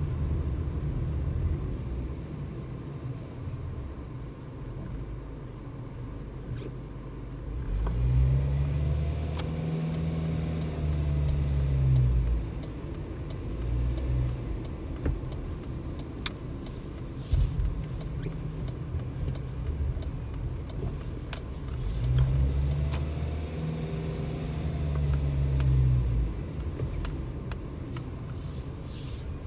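Car engine and road noise heard from inside the cabin while driving, with the engine note rising and then falling twice as the car speeds up and slows.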